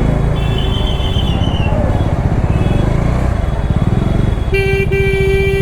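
Bajaj Dominar 400 motorcycle's single-cylinder engine running under way in traffic. A vehicle horn honks near the end, held steady for over a second after a short first toot.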